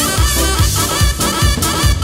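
Turkish folk dance music: davul bass drums pounding about two beats a second under a high, wavering melody line.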